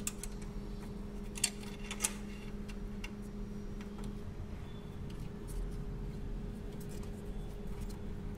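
Light metallic clicks and ticks of a hex key turning and catching on screws inside a printer's metal carriage bracket, sharpest in the first couple of seconds, over a steady low hum.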